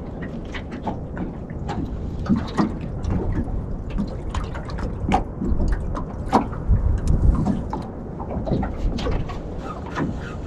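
Small waves lapping and slapping against the aluminium hull of a small boat, a run of irregular splashy knocks over a low wind rumble on the microphone.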